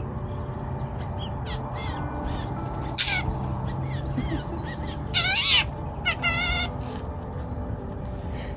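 Drongos calling: a run of short chirps and whistles, with a loud harsh call about three seconds in, a louder rasping call about five seconds in and a wavering call just after it.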